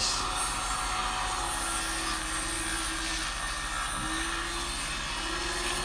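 Electric circular saw mounted under a homemade plywood table saw, running steadily while a board is fed through the blade.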